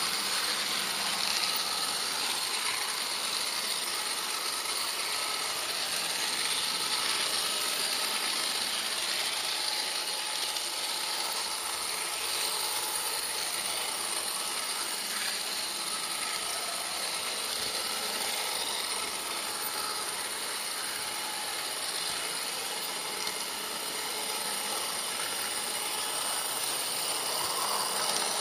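HO-scale model train running steadily along the track: a constant whirring and rattling of the locomotive's motor, gears and wheels on the rails, heard close up.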